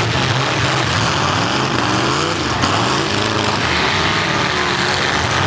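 Several demolition derby cars' V8 engines revving hard, the pitch rising and falling as the cars push against each other on the dirt.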